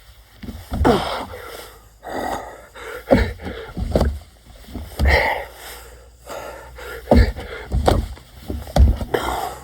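A man breathing hard while doing burpees, a gasping, wheezing breath about once a second, with dull low thuds as he drops to the ground and jumps up.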